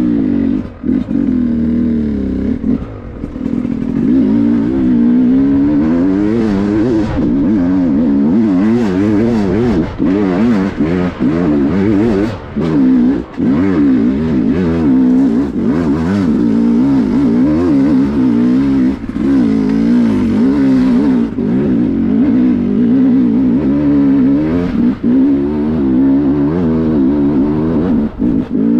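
Dirt bike engine, heard from the rider's helmet, revving up and down constantly as the throttle is worked on a steep rocky hill climb, with a few brief cuts in power.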